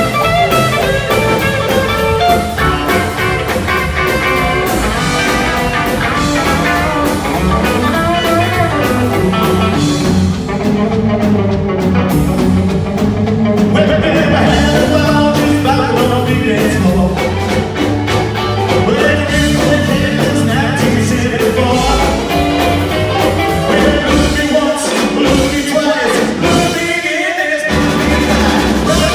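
Live rockabilly band playing a fast rock-and-roll number on slapped upright bass, drum kit, piano and hollow-body electric guitar, with singing at times. Late on, the bass drops out briefly a couple of times.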